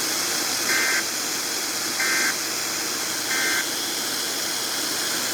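Three short two-tone data bursts of an Emergency Alert System SAME end-of-message code, one about every 1.3 seconds, over a steady hiss of radio static.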